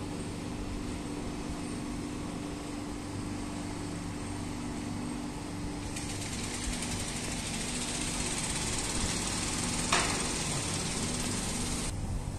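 An engine running steadily with an even hum. About halfway in, a high hiss joins it and cuts off suddenly near the end, with a single click shortly before it stops.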